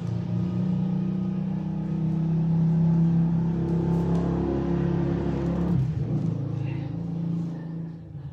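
A motor vehicle's engine running close by, a steady low engine note that grows louder over the first three seconds and eases off about six seconds in.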